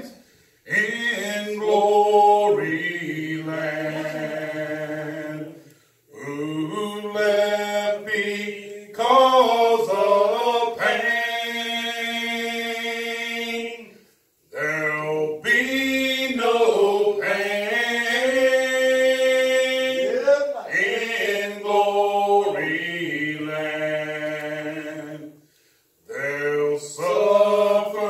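Unaccompanied singing of a slow hymn: long, held notes in phrases several seconds long, with short breaks for breath between them, about half a second in, around 6 s, 14 s and 26 s.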